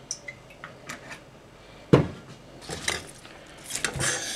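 Kitchen worktop handling noise: scattered light clicks, a single sharp knock about two seconds in, then bursts of clatter and rustling near the end as an artichoke and knife are handled on a cutting board.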